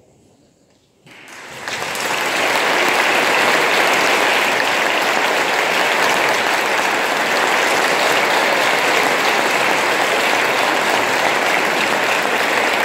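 Audience applause that breaks out about a second in, after a brief hush, swells quickly and then holds steady.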